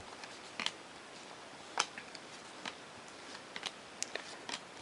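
Baseball trading cards being flipped through by hand, the card edges giving faint, irregular clicks and snaps.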